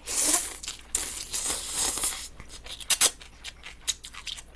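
A person slurping cold naengmyeon noodles loudly for about two seconds, then chewing with wet mouth clicks and smacks.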